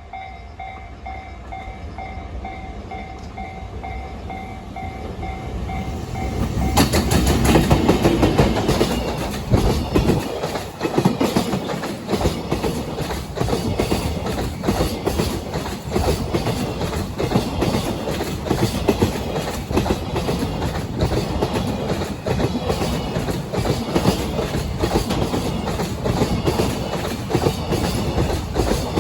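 Level-crossing warning bell ringing in a steady pulsing chime while a train approaches. About seven seconds in, a freight train reaches the crossing and passes, its wheels banging loudly over the rail joints in a dense, continuous clatter.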